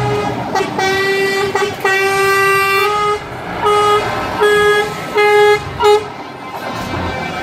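Truck horns blasting about eight times in a row, some short toots and some held for about a second, with the same steady pitch each time. The blasts stop about six seconds in, leaving the rumble of the passing trucks.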